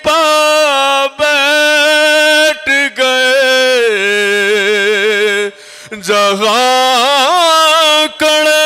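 A man singing soz, the unaccompanied Shia elegy of Muharram, into a microphone. He holds long notes with wavering, ornamented pitch, drops to a lower held note about four seconds in, and breaks off for short breaths.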